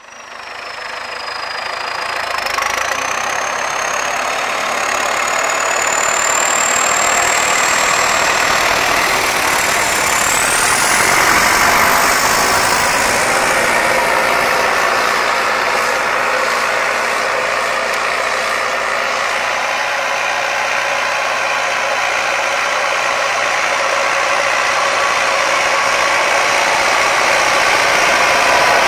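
MTZ 952.4 tractor's diesel engine running steadily under load while pulling a plough through the soil. It fades in at the start, and a thin high whistle rises in pitch over the first dozen seconds.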